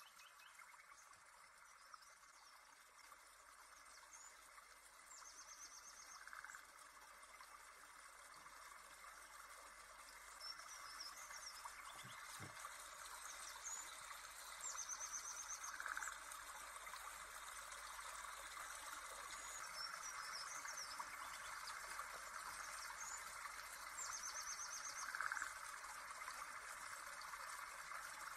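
A nature-sounds background of birdsong over a steady watery hiss: short high trills come back about every five seconds, with a few softer single notes between them, and the whole grows slightly louder.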